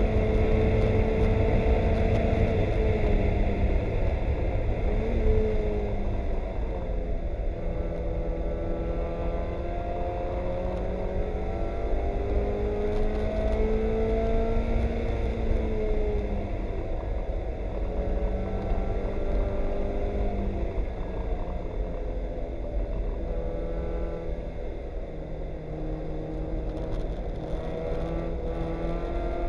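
Mazda Miata race car's four-cylinder engine heard from inside the cockpit, its revs climbing and then dropping at each of several gear changes, over a steady low rumble.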